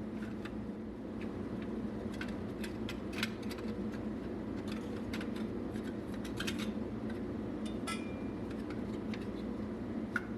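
Light metallic clicks and clinks of small metal parts and hand tools being handled, scattered irregularly over a steady low hum.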